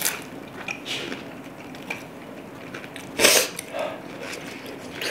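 A person eating tteokbokki: small clicks of a utensil against the dish, with one short, loud breathy noise about three seconds in.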